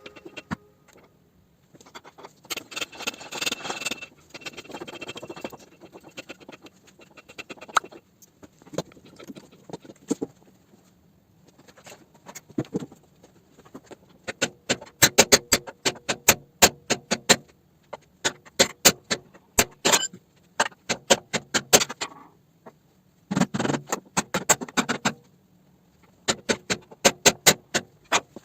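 Hand tools on car-body steel: runs of sharp metallic taps and clinks, several a second, with rougher scraping stretches in between. It sounds like tapping and working on the frame rails.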